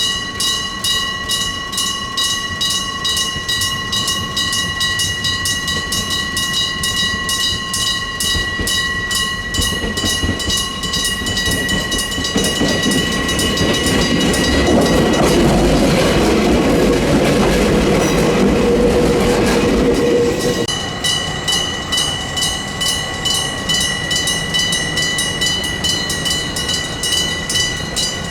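Electric-bell (gong) level-crossing alarm: a real bell struck by a hammer rapidly and evenly, over and over, its tone ringing on between strikes. From about ten seconds in, a train passes over the crossing with a growing rumble and wheel noise that peaks, then cuts off sharply about twenty seconds in, while the bell keeps striking.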